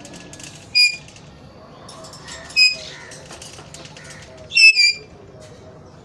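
Alexandrine parakeets giving four short, shrill calls, the last two in quick succession.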